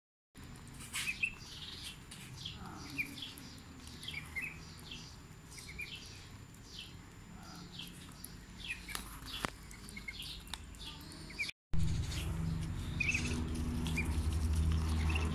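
Muscovy ducklings peeping: many short, high calls, each falling in pitch, with a few sharp clicks among them. After a break about eleven and a half seconds in, the peeps go on over a louder steady low hum.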